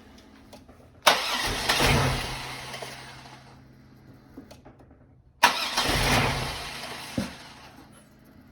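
Supercharged 3800 V6 of a 2004 Impala SS being started after sitting six months: two start attempts, one about a second in and one about four seconds later. Each comes in suddenly and fades over a couple of seconds.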